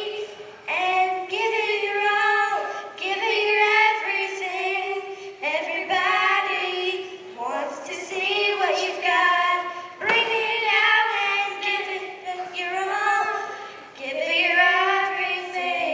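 Young girls singing a song into a microphone, in phrases of long held notes with short breaks between them.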